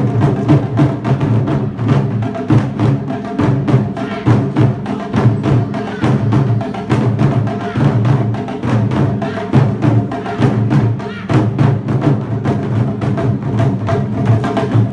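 Japanese festival percussion: drums struck in a fast, steady rhythm with wooden clacks and a pitched ringing tone over them.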